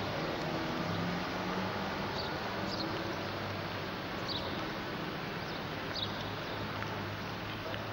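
Street ambience recorded on an old camcorder: a steady hiss with a faint low hum, and a few short high chirps scattered through it.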